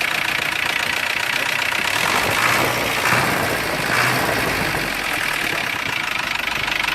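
Mercedes-Benz 608 truck's diesel engine idling with its cover off, heard from inside the cab: a loud, steady clatter that the owner calls noisy.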